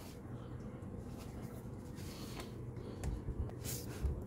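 Low room hum with scattered faint clicks and handling rustle, a brief hiss and a light knock near the end.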